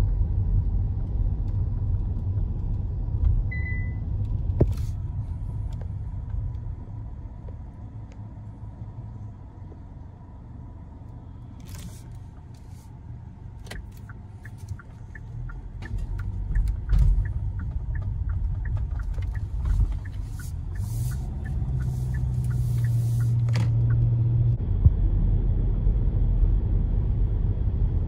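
Car driving, with road and engine rumble heard from inside the cabin, quieter in the middle and louder again toward the end. Midway through comes a run of quick, even ticks.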